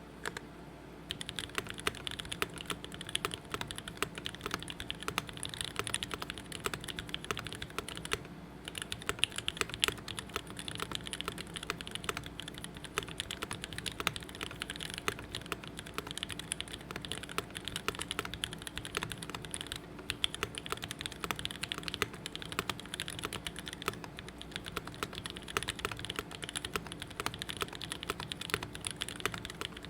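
Continuous typing on a custom RS60 mechanical keyboard with SP-Star Meteor White switches, an aluminum plate and GMK keycaps: a quick, dense run of key clacks. It starts about a second in and breaks off briefly a little over a quarter of the way through.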